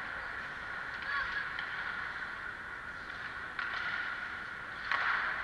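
Ice hockey game in play: skates scraping on the ice and short distant calls from players across the rink, with a louder rush of sound near the end.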